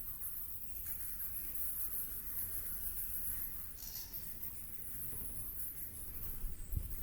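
Natural outdoor ambience: a steady high-pitched insect chorus over a low rumble, with a brief higher sound about four seconds in and a low thump near the end.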